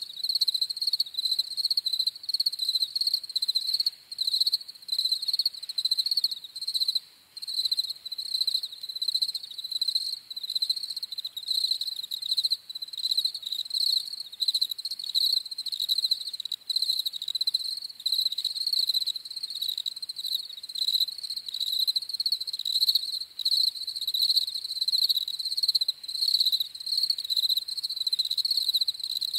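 Several field crickets (Gryllus campestris) chirping together, their songs overlapping into a continuous high, pulsing trill.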